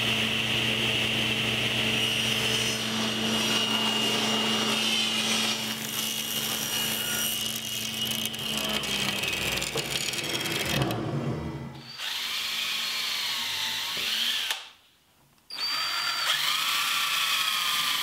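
Table saw running and cutting an angle in a thermally modified poplar board, then spinning down about ten seconds in. After that, a cordless drill with a countersink bit runs in two bursts, drilling countersunk screw holes.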